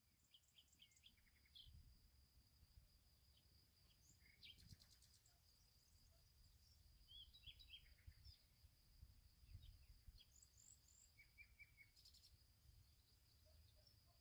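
Near silence with faint outdoor ambience: scattered bird chirps over a steady high insect-like drone.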